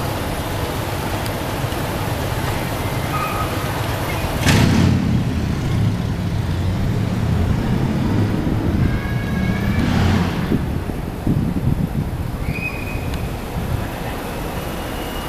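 R160A subway train approaching on elevated track, its wheels rumbling steadily on the rails. A sharp bang comes about four and a half seconds in and another around ten seconds, and brief high-pitched squeals come in the second half, with a steady high squeal near the end.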